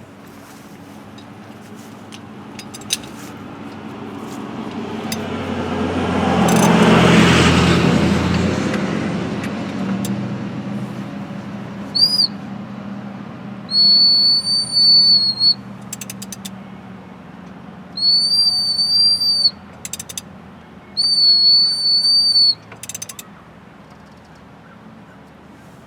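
A TDC whistle screwed into the number 1 spark plug hole of a 1989 Nissan Z24i four-cylinder engine sounds one brief chirp and then three steady high toots of about a second and a half each, all on one pitch. Each toot is air pushed out as the piston rises on its compression stroke, the sign that cylinder 1 is coming up to top dead centre. Before the whistling, a rushing noise swells and fades, and there are a few clicks.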